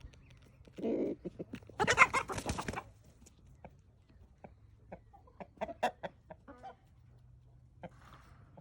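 Chickens clucking in scattered short calls, with one loud harsh burst lasting about a second around two seconds in.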